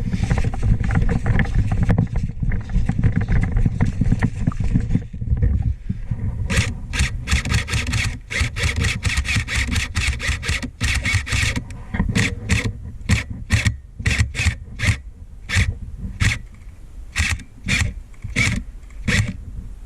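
Airsoft gun firing: a quick string of sharp shots for about five seconds, then single shots about every half second. Before the shots there are a few seconds of low rumbling and rustling from movement close to the microphone.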